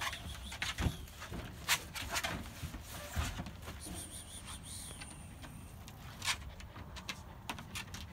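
Puppies moving about inside wire dog crates, with scattered light clicks and knocks.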